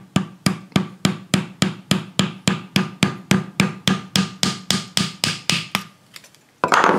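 Rapid, even hammer taps, about three a second, driving small wooden sticks in as wedges between the halves of a cast DIY Corian mould to split them apart. The tapping stops about six seconds in, and a brief louder noise follows near the end.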